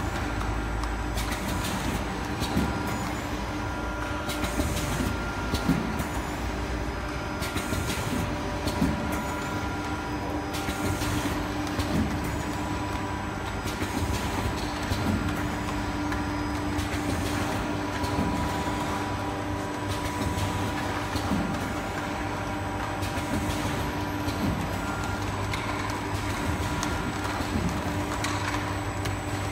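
Coffee capsule filling and sealing machine running: a steady mechanical hum with a few fixed tones, broken by irregular clicks and knocks every second or few.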